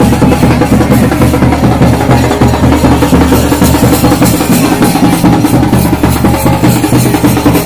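Drums of a Raut Nacha dance troupe playing a loud, fast, driving beat without a break.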